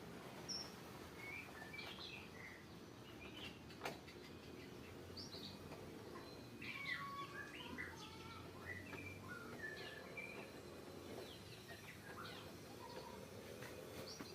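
Birds chirping, many short calls that come thickest about halfway through, over a faint low steady hum. A single sharp click about four seconds in.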